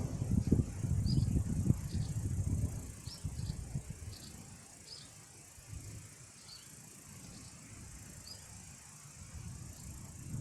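Thunder rumbling low, loudest in the first few seconds and then dying away, with short high chirps repeating about once a second.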